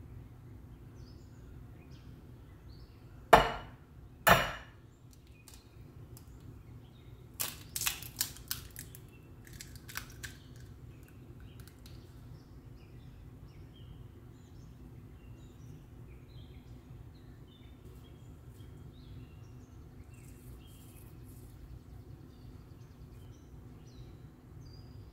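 An egg struck twice sharply against the rim of a glass mixing bowl to crack it, followed a few seconds later by a cluster of smaller clicks and ticks as the shell is pulled open and the egg drops in. A faint steady hum sits underneath.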